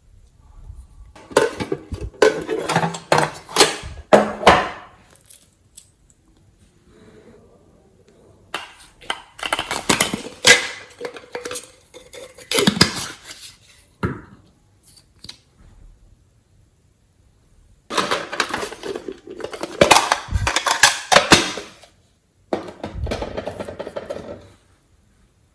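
Slime being kneaded and squeezed by hand, giving dense crackling and popping in four bursts with short pauses between.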